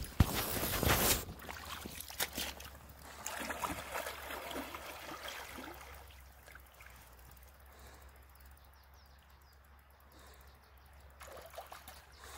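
Rubbing and bumping of the phone being handled for about the first second, then faint water lapping and trickling at a stony lake shore, fading quieter toward the end.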